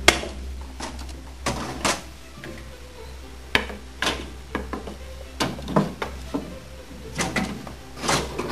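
A series of irregular knocks and clunks from wooden pieces and bending gear being handled, about fifteen in all and the sharpest right at the start, over a steady low hum.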